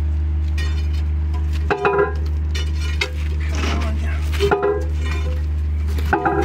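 Loose pieces of cut steel clinking and scraping against each other and the crusher's steel bore as they are handled, a few short ringing clinks about two, three, four and a half and six seconds in, over a steady low hum.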